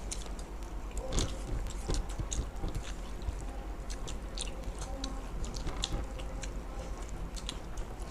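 People chewing and eating at close range, with many short, wet mouth clicks and smacks. A steady low hum runs underneath.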